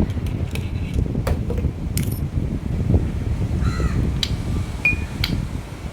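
Sharp metal clinks, a handful spread across a few seconds, as steel differential spider gears and thrust washers are handled and seated in the carrier, over a steady low background rumble.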